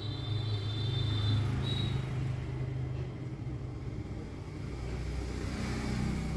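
Low, steady rumble of a motor in the background, with a faint high whine during the first second and a half.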